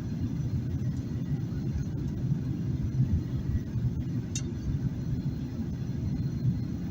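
Steady low rumble of a Boeing 737-800 cabin during descent, heard from inside at a rear economy window seat: engine and airflow noise. A brief high click sounds about four seconds in.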